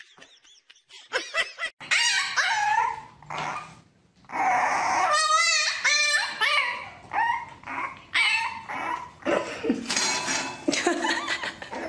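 Dog whining and yipping in a series of short cries that rise and fall in pitch, with a brief pause about four seconds in.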